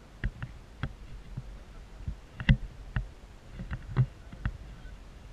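Irregular knocks and clicks, about a dozen, the loudest about two and a half and four seconds in.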